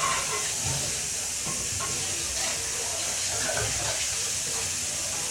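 Steady hiss with faint low knocks and scrapes from flour and cream being mixed in a small bowl.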